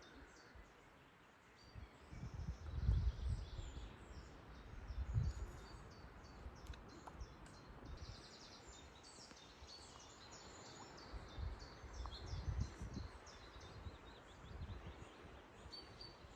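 Small birds chirping and calling in the background, with a few low rumbles on the microphone.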